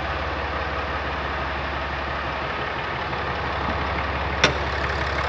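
2018 Ram 2500's 6.7-liter Cummins turbo-diesel inline-six idling steadily and smoothly. A single sharp click sounds about four and a half seconds in, as the hood latch is released.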